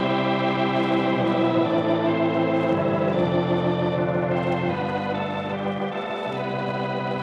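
Organ theme music playing slow, held chords that change every second or two.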